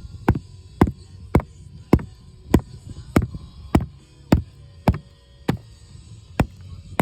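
Background music with a steady percussive beat, just under two hits a second.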